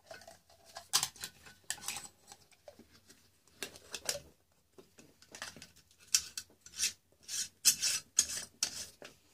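A metal screw lid being turned down onto the threads of a glass jar. It makes short scrapes and clicks in irregular spurts with pauses between them.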